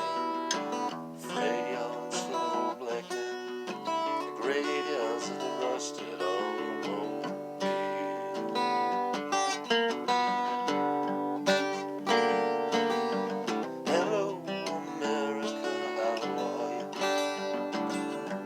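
Acoustic guitar being strummed and picked continuously.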